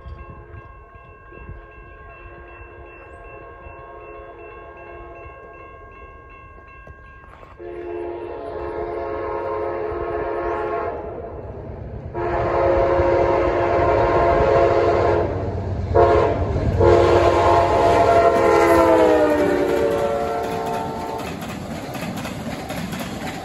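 A grade-crossing bell rings steadily, then an Amtrak locomotive's horn sounds the crossing signal: long blasts broken by a short one. The last blast drops in pitch as the engine passes, and the passenger cars' wheels clatter over the rails as they roll by.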